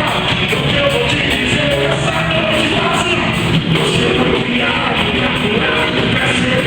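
Live worship band playing a loud, rock-style song, with singing over the full band.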